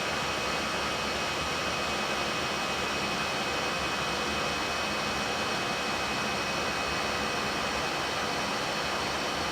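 Steady flight-deck noise of an Airbus A320-family airliner in climb: an even rush of airflow and jet-engine and ventilation noise, with a few faint steady whines held throughout.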